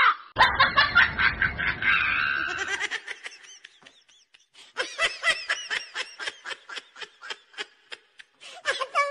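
People laughing in quick repeated bursts. At the start the laughter comes over the rush of water splashing, and after a short lull a second, longer run of laughing follows.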